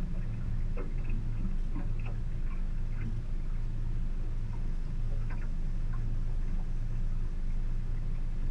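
Outboard motor idling with a steady low hum that swells and fades about once a second, with scattered light clicks over it.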